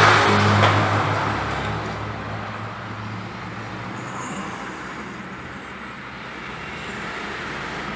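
Toyota Etios 1.5 four-cylinder engine running, loudest in the first second and then easing to a quieter, steady run. The timing chain has just been reassembled.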